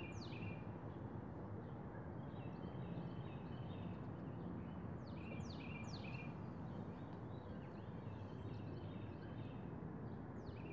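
Songbirds singing over a steady low outdoor background rumble: a phrase of quick downward-sliding high notes recurs about every five seconds, with softer chattering notes in between.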